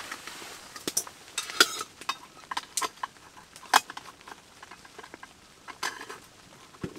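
A few sharp metallic clinks and clicks from handling a small camping wood stove and the pot sitting on its top; one clink rings briefly.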